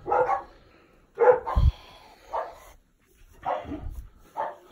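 A dog barking repeatedly, about six short barks spread across a few seconds, with a low thump about a second and a half in.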